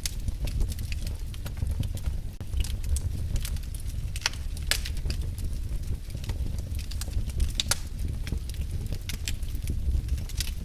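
Fire burning in a fireplace: a steady low rumble of flames with irregular sharp crackles and pops, several a second.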